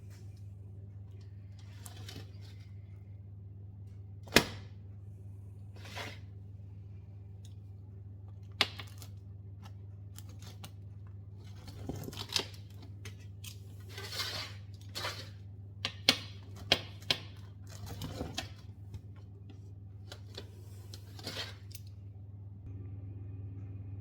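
Kitchen handling sounds: scattered sharp clicks and knocks and short rustling, tearing noises, over a steady low hum.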